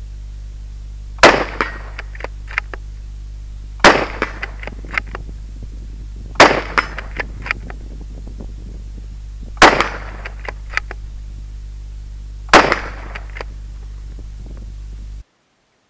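Five rifle shots from a Howa 1500 Ultralight bolt-action rifle in .223 Remington, spaced about two and a half to three seconds apart. Each shot is followed by a few smaller clicks, with a steady low hum underneath.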